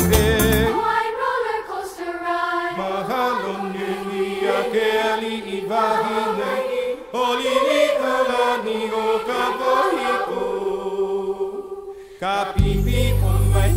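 Background music: a choir singing a Hawaiian song, with voices carrying the melody over light accompaniment. Near the end the music turns suddenly fuller and louder, with a steady deep low end.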